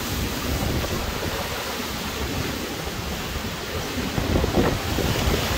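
Hurricane wind blowing hard and buffeting the phone's microphone: a steady rough rush of noise that swells in gusts from about four seconds in.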